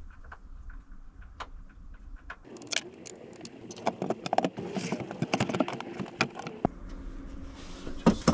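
Metal hardware clinking and rattling as it is handled during work inside a kitchen unit, a dense run of clinks lasting about four seconds, with a few light taps before it and a sharp knock near the end.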